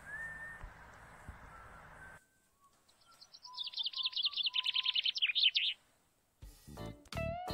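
A songbird singing a fast, dense trill of high chirps for nearly three seconds, with a few lower whistled notes beneath it. It follows a few seconds of faint outdoor background noise, and plucked guitar music begins near the end.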